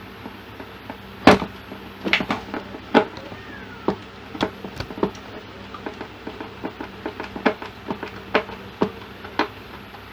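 About a dozen sharp clicks and knocks at irregular intervals, the loudest about a second in: hard objects being handled and set down on a workbench during repair work. A faint steady hum runs underneath.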